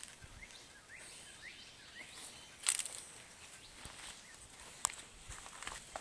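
Faint outdoor ambience with a few short rising chirps in the first half and two sharp clicks, one about three seconds in and one near five seconds.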